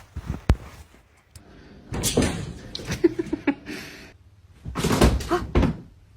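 A sharp knock about half a second in, then bursts of bumping and banging about two seconds in and again about five seconds in.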